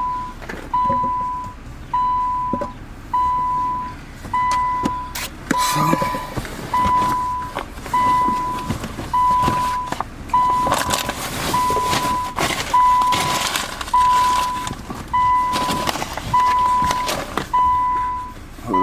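A car's electronic warning chime beeping steadily at one even pitch, about once a second, each beep fading before the next. Rustling handling noise comes and goes over the chime partway through.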